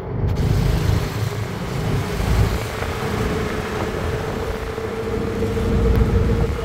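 Steady engine rumble and road noise from inside a moving open-sided auto-rickshaw in traffic, with a steady hum running under it and wind and traffic noise reaching in through the open sides.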